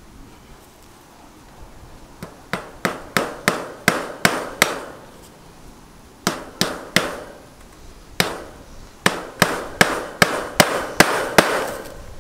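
Hammer driving small fence staples through chicken wire into a wooden board: several quick runs of sharp strikes, about three a second, with short pauses between staples.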